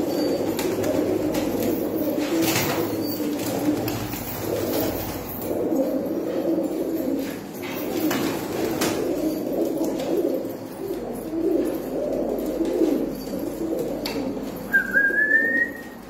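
Many domestic fancy pigeons cooing at once, a continuous overlapping low cooing with a few faint clicks. Near the end comes a short rising whistle.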